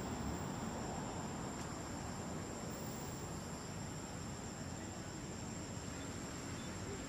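Forest ambience: a continuous high-pitched insect drone over a steady low hiss.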